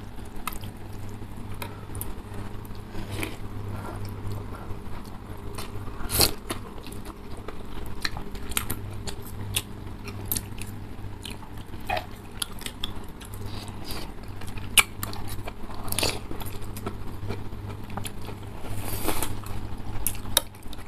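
Close-miked eating of noodle soup: chewing and slurping noodles, with many small clicks of forks and spoons against the bowls and a few longer slurps. A steady low hum runs underneath.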